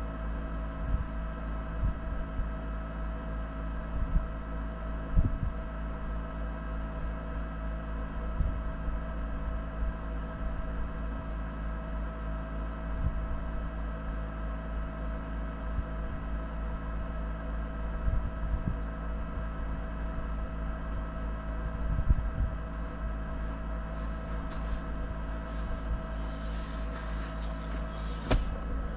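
4x4 engine running at a steady speed, with scattered knocks and thumps throughout and a spell of high crackling or rattling near the end.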